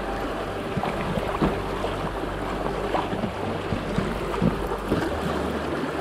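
Packraft paddle strokes dipping and splashing in river water, repeating every half second to a second over steady water and wind noise.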